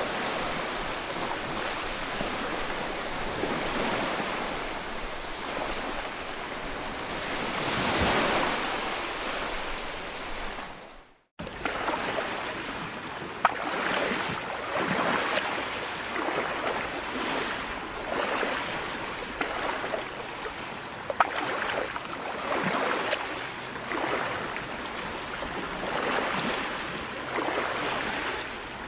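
Floodwater rushing, a dense steady wash of water noise that rises and falls in surges. It cuts out abruptly for a moment partway through, then carries on with a few sharp clicks.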